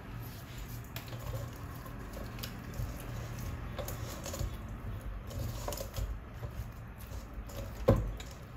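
Pieces of raw, cut croaker fish handled in a plastic colander: soft wet squishes and small irregular clicks, with one louder thump near the end.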